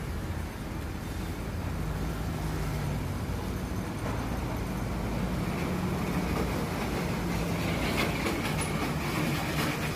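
Diesel engine of a heavy cabover tractor truck pulling an empty flatbed trailer, running steadily as it approaches and passes close on a wet road. From about eight seconds in, a run of rattling clatter, typical of an empty trailer bouncing.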